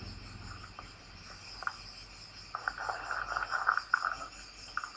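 Soft papery rustles and flicks as stacks of banknotes are handled, clustered about halfway through, over a steady faint high-pitched chirring.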